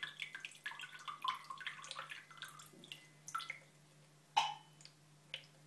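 Algae water splashing and dripping into a clear acrylic tank as a pump fills it: a quick patter of drops for about three seconds, thinning to a few single drips. There is a sharp click about four seconds in, over a faint steady low hum.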